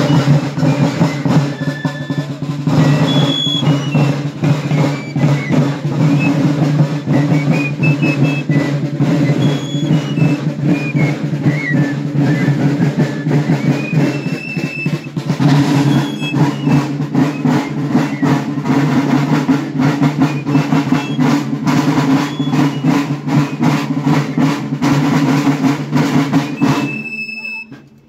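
Fifes and marching drums playing a march: a shrill fife tune over steady drum rolls. The drums ease off briefly about halfway through, and the music stops about a second before the end.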